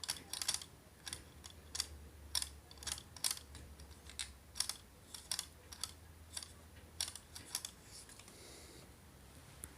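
Irregular light plastic clicks and taps from parts of an opened HP 8500 inkjet printer being handled, about one to three a second, stopping about eight seconds in.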